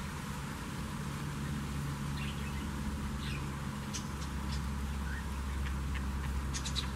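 Steady low rumble with faint bird chirps scattered through it and a few light clicks near the end.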